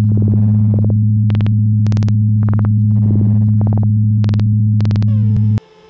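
Synthesized intro music: a loud, steady low electronic drone with short bright tone pulses about every half second. Near the end a falling sweep comes in and the drone cuts off suddenly.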